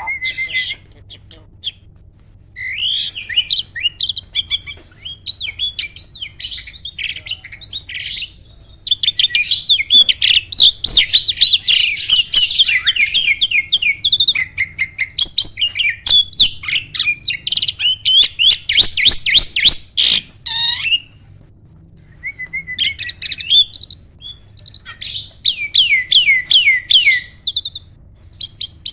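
Jalak starling singing loudly: long runs of rapid, repeated chattering notes mixed with sharp clicks, with a brief pause about three-quarters of the way through.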